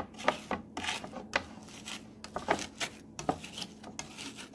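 Knife blade scraping and mashing garlic with salt into a paste: a run of irregular short scrapes and taps.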